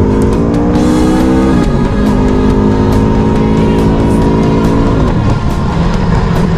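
Aprilia Tuono V4 Factory's V4 engine accelerating hard. Its pitch climbs, drops at an upshift about a second and a half in, climbs again, then falls away about five seconds in. Background music with a steady beat plays alongside.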